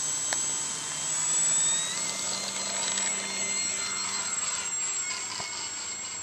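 Scratchbuilt RC airplane's motor and propeller running during takeoff and climb-out: a high whine that rises in pitch about one to two seconds in, then holds steady as the plane climbs away and slowly grows fainter.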